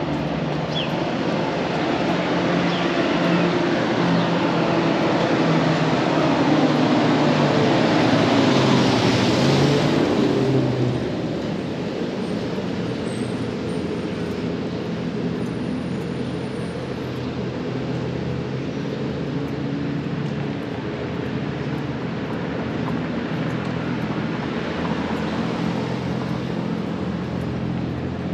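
Street traffic on a busy city street: a large engine-driven vehicle passes close by, growing louder to its peak about nine seconds in and falling away quickly just after ten seconds, leaving a steady lower hum of traffic.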